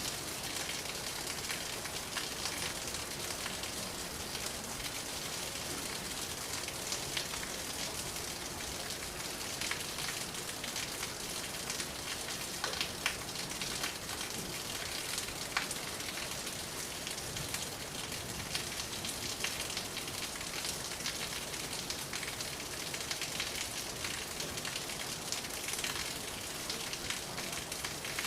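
Steady rain falling: a constant hiss with many small, sharp drop ticks scattered through it.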